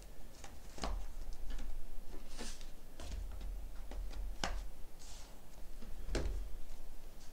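Hands handling a book-style box-set case of card and paper: a handful of light clicks and taps with a few brief papery rustles and dull low bumps as the insert is slid in and the case is closed.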